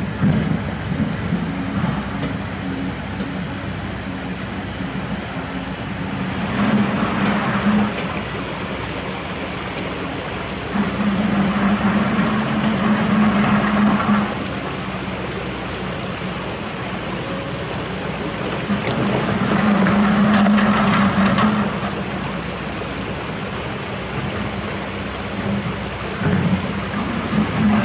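Kobelco SK200 hydraulic excavator's diesel engine running steadily. It swells three times as the hydraulics take load during digging, over a constant rushing hiss.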